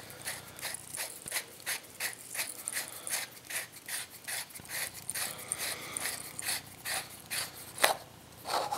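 Lightsaber hilt's machined aluminium rear grip section being unscrewed by hand: the threads scrape in short repeated rasps, about three a second, with one sharper click near the end.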